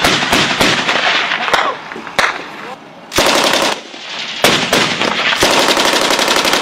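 Machine-gun fire: bursts of shots in the first second and a half, a short lull, a brief burst about three seconds in, then rapid, nearly continuous fire from about four and a half seconds on.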